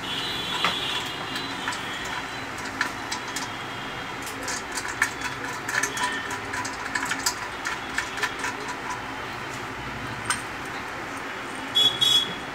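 Scattered light metallic clicks and knocks from the parts of a sheet-iron sewing-machine treadle stand being handled and fitted together, over a steady background hum, with a quick cluster of louder clinks near the end.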